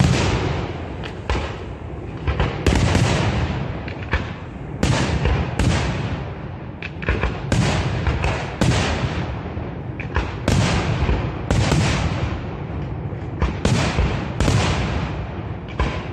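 Aerial firework shells bursting in quick succession, a sharp bang about once a second, each fading off before the next.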